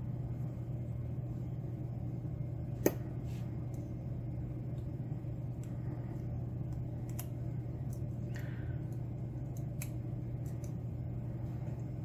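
Small metallic clicks of steel tweezers and brass pins against a padlock core as the pins are set into it, a few scattered clicks with the sharpest about three seconds in, over a steady low hum.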